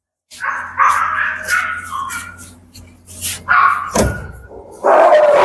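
Kennelled dogs barking in short, irregular calls, a sharp metal clank about four seconds in as the sheet-metal kennel gate is opened, then many dogs barking together loudly and without a break near the end.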